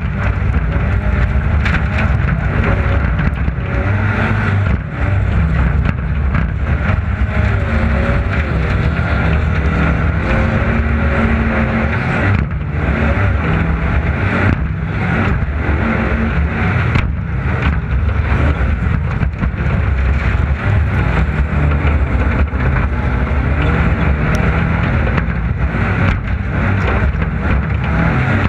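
Racing vehicle's engine running hard under way, its pitch wavering up and down with a few brief dips, over a steady rush of wind and road noise.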